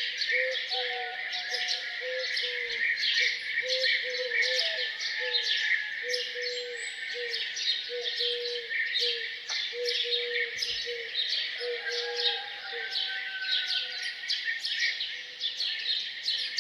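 A chorus of small songbirds chirping and twittering densely and continuously. Beneath it, a lower bird call of short notes repeats over and over.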